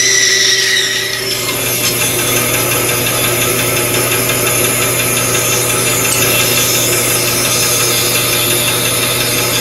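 Bandsaw running with a 3/16-inch, 10 TPI Timberwolf blade. For about the first second the blade cuts through a 2x4 wood block, then the saw runs on with no load, a steady motor hum and blade noise.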